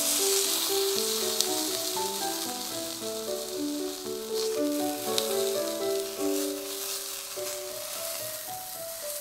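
Kobe beef fillet sizzling as it sears in a hot cast-iron skillet, while wooden spatulas turn it. A steady hiss with a few sharp ticks scattered through it.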